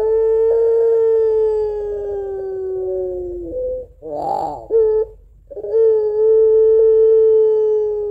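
Barbary dove (puter pelung) giving two long, drawn-out 'crying' coos, each held for about three and a half seconds, sinking slowly in pitch and closing with a short note. A brief rough sound falls between the two coos.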